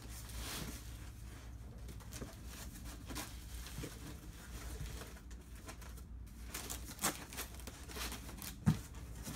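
Corrugated cardboard rustling and scraping as it is handled, folded and pressed into place around a lampshade, with two sharp knocks near the end.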